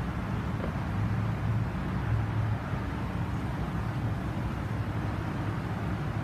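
Steady low outdoor rumble heard from a height, like distant traffic, with no distinct event standing out.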